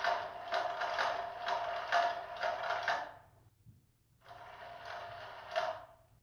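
A ball rattling as it rolls around a plastic circular track cat toy, with a steady hum under the clicking. It runs for about three seconds, stops briefly, then runs again for about two seconds.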